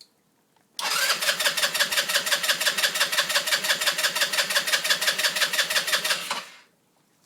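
150cc Baja SC150 scooter engine being cranked by its starter for about six seconds in a steady, even rhythm, never catching, then stopping: a no-start even with a new spark plug, cause unknown to the owner.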